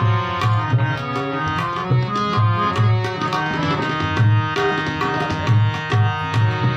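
Instrumental passage of a Hindu devotional bhajan: tabla playing a brisk rhythm with deep resonant bass-drum strokes, under a sustained harmonium melody.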